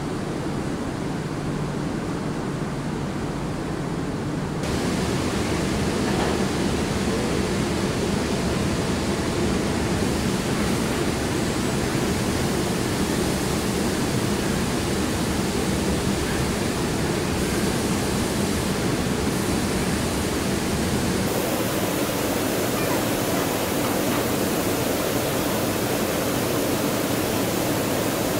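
Steady rushing hiss of air and paint spray in a car-body paint booth where robots are painting a MINI body shell. It grows louder and brighter about five seconds in.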